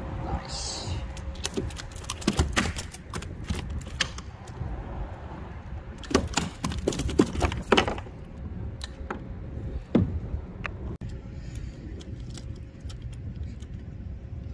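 Wind rumbling on the microphone, broken by bursts of sharp clicks and rattles about two seconds in, again from about six to eight seconds in, and once more as a single knock about ten seconds in.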